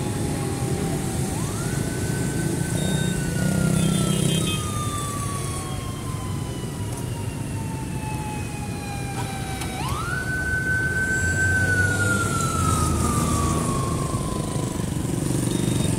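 A siren wailing over the engines of a stream of passing motorbikes. Twice its pitch rises quickly, then slides slowly down over several seconds.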